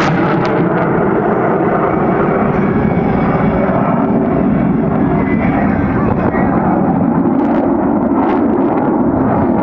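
Jet noise from the F-22 Raptor's twin F119 turbofan engines, a loud, steady, dense rumble with no break.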